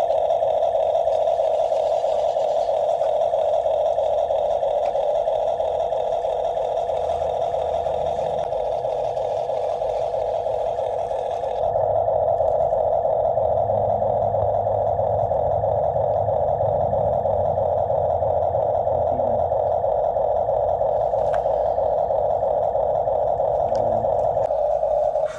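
A small motor whirring steadily with a buzzy drone. About twelve seconds in, its tone shifts, losing some of its higher hiss as a lower rumble comes in.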